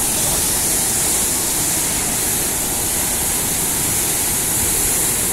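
Flash-flooded river in spate, a steady loud rush of churning floodwater.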